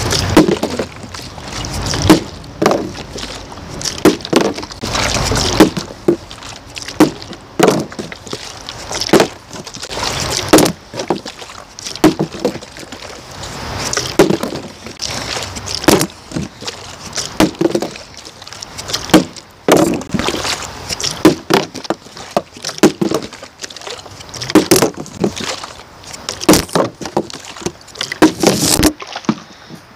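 Plastic drink bottles with liquid inside being flipped and landing or caught over and over: a string of irregular hollow thuds and knocks, about one a second.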